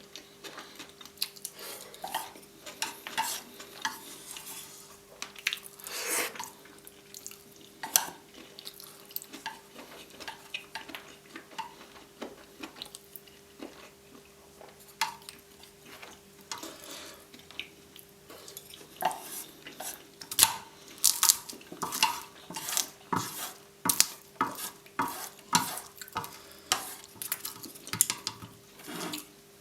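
Fork or spoon clinking and scraping against a plate of fried noodles in quick irregular strikes, busier in the second half, over a faint steady hum.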